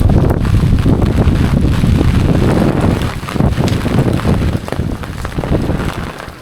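Gusty wind buffeting the microphone during typhoon weather, a loud, irregular low rumble that eases off near the end.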